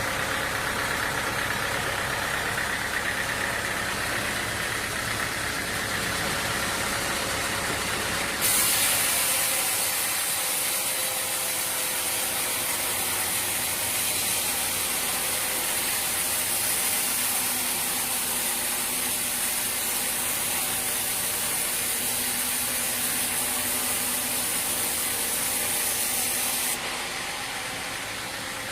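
A machine's engine running steadily. About eight seconds in, the sound switches abruptly to a steady high hiss that cuts off sharply a couple of seconds before the end.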